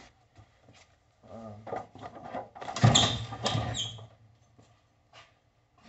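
Gloves being pulled onto the hands: a short run of rubbing and stretching with squeaky bits, loudest about halfway through.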